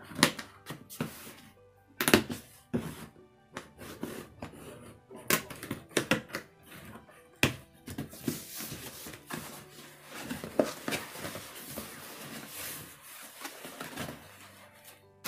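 Cardboard shipping box being cut open and handled: scissors snipping the packing tape and the box knocking in the first half, then a steady rustle and scrape of cardboard flaps and tape as the box is opened. Music plays underneath.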